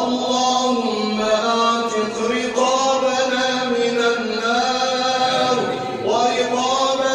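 A man's voice chanting an Arabic supplication in long, drawn-out melodic notes. The pitch slides up into a new phrase about two and a half seconds in and again near six seconds.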